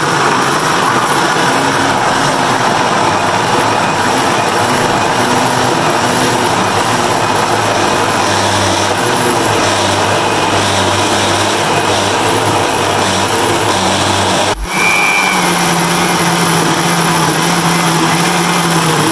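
Electric countertop blender running at full speed, grinding soaked ginger and garlic with a little water into a paste. The motor stops for a moment about fourteen seconds in, then starts again with a slightly higher hum.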